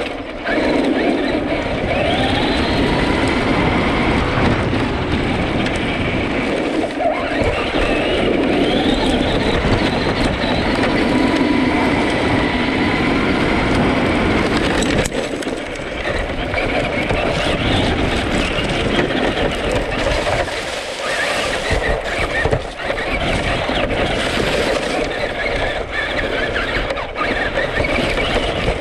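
Traxxas Rustler 4x4 RC truck driving hard off-road, heard close up from on board: its electric motor whines, rising in pitch as it speeds up and easing off now and then, over the steady rumble and rattle of the tyres and chassis on dirt and leaf litter.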